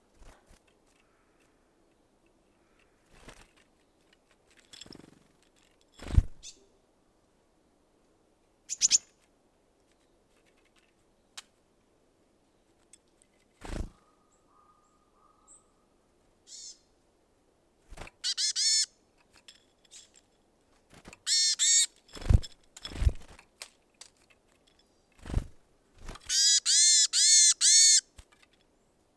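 Small birds calling at a feeder: short bursts of rapid, buzzy repeated notes, the longest run near the end. Scattered sharp knocks in between, the loudest about six seconds in.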